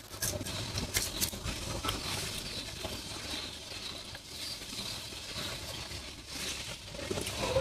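A person chewing food close to the microphone, with wet mouth and eating sounds. A few light clicks, like a utensil on the plate, come in the first second or so.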